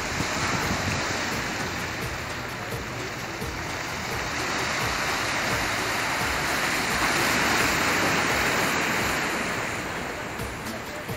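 Sea washing against the rocks of a breakwater: a steady rush of surf that swells and eases, loudest about two-thirds of the way through.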